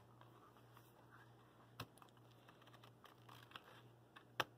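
Near silence with a few light taps and clicks from a baby's hands and a page turning on a cardboard board book; the sharpest clicks come about two seconds in and near the end, over a faint steady hum.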